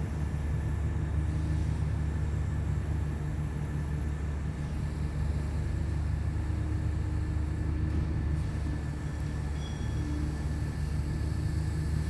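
Mobile crane's diesel engine running steadily, a low even rumble.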